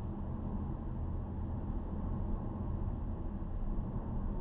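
Cabin noise of a 2012 Ford Fusion Sport driving along at a steady pace: a steady low hum from its 3.5-litre V6 exhaust, with the resonator removed, mixed with road and tyre noise.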